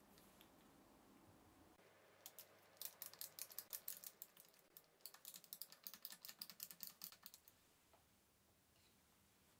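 Hand screwdriver turning a small screw into a plywood block: two runs of quick, light clicks, each about two seconds long, starting about two seconds in.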